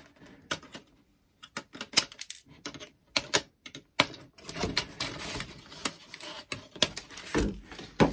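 Clear plastic packaging and a hard plastic toy figure being handled: irregular sharp clicks, clacks and crinkles as the figure is worked loose from its clear plastic tray, busier with rustling in the second half.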